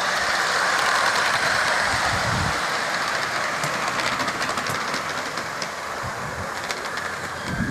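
Ridden miniature steam locomotive running on a raised track, a steady rushing rumble with a quick patter of wheel clicks over the rail joints. It grows gradually quieter as the train moves away.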